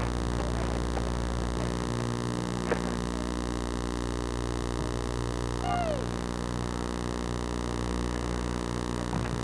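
Steady low hum of the recording's background noise, with a child's distant falling shout about six seconds in.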